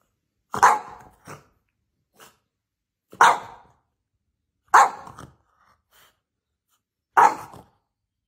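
A French bulldog barking in single sharp barks: four loud ones spaced about one and a half to two and a half seconds apart, with a couple of soft short yips between the first two. The dog is crouched in a play bow, so these are play barks.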